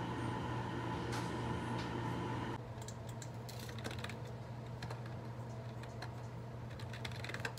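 A steady hum with a held whine, which cuts off abruptly a couple of seconds in, followed by typing on a computer keyboard in quick, irregular clicks.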